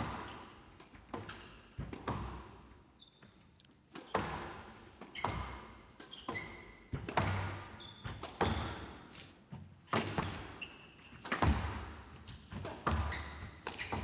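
Squash rally: a fast run of sharp, echoing hits as rackets strike the ball and the ball slams into the walls, about one or two a second, with short high squeaks of shoe soles on the wooden court floor between them.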